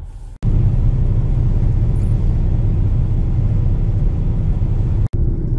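Steady low rumble of a car driving on the road, heard from inside the cabin. It cuts in abruptly about half a second in and breaks off for an instant near the end.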